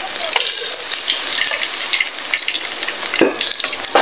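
Hot oil sizzling and crackling hard in a wok as coated chicken feet are dropped in and deep-fry. A single sharp knock comes near the end.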